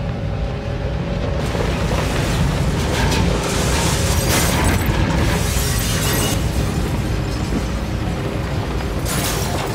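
A dramatic film sound effect: a loud, noisy, rumbling swell with deep low end, building about a second and a half in and surging again around the middle and near the end, laid over the film's score.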